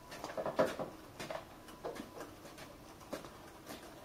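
Irregular clicks, knocks and creaks, roughly one every half second to a second, from a truck rolling on small wheel dollies across concrete as it is hauled along by hand with a rope.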